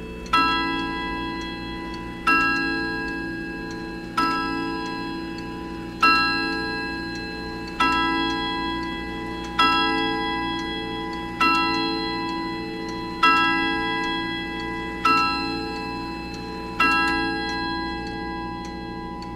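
Sternreiter Hummel wall regulator clock's 8-day mechanical movement striking the hour on its gong: ten single ringing strokes about 1.8 seconds apart, each dying away before the next, with the pendulum movement ticking beneath.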